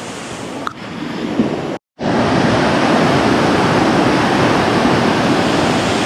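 Mountain stream rushing over rocks and small cascades: a steady, dense rush of water that cuts in abruptly after a brief silent gap about two seconds in. Before the gap there is only quieter outdoor background noise.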